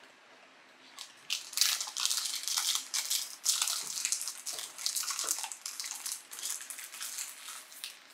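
Foil wrapper of a green tea wafer cookie being torn and crinkled open by hand: irregular crackling that starts about a second in and goes on in quick, uneven bursts.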